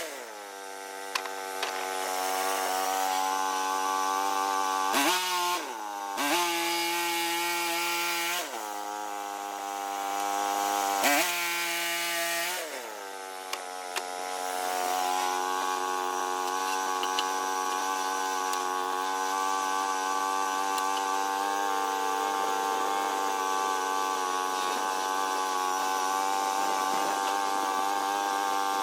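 Small sawmill's engine running. Its speed drops at the start, dips and climbs back twice in the first half, then holds steady.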